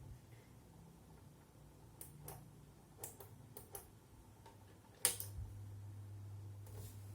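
Sunshine P-3005D bench power supply being handled: several light clicks, then a sharp switch-like click about five seconds in, after which a steady low hum sets in.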